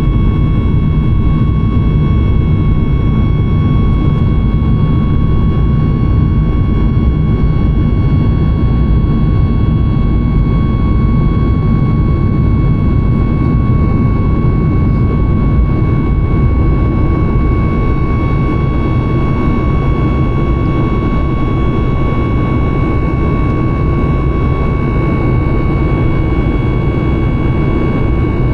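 The Boeing 737 MAX 9's CFM LEAP-1B turbofan engines under takeoff power, heard from inside the cabin. There is a loud, steady rumble with a thin whine held at one pitch throughout.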